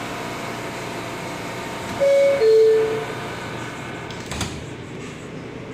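Subway car door-closing chime, two notes, the higher one first, sounding about two seconds in, then about two seconds later a thud as the sliding doors shut, over the steady hum of the car.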